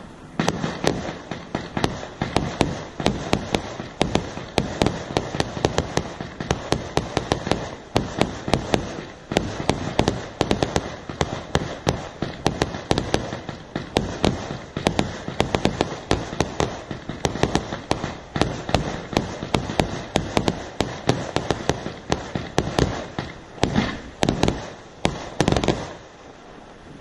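Fireworks going off in a rapid, continuous barrage of bangs and crackles, several sharp reports a second, until they die away just before the end.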